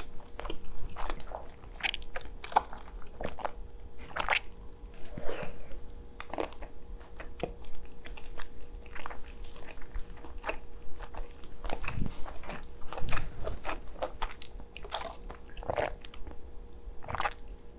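Close-miked eating sounds: a person biting and chewing spicy stir-fried noodles and kielbasa sausage, with many irregular short wet smacks and clicks of the mouth.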